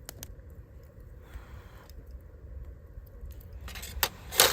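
A few sharp metallic clinks and clicks, the loudest near the end, over a low steady rumble.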